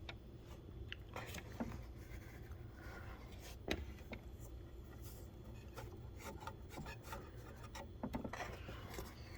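Fingers rubbing and spreading baking soda powder over the inside surfaces of a Rotimatic roti maker: faint rubbing and scraping with scattered light taps, one a little louder about four seconds in.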